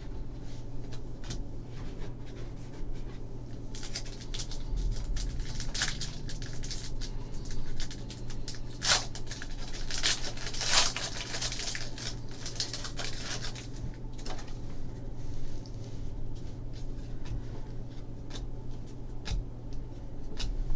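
A 2014 Panini Contenders football foil pack being torn open and its cards handled: crinkling wrapper and the rustle and click of cards sliding against each other. The crinkling and tearing is busiest in the middle, with a couple of louder rips, then thins to lighter card slides near the end.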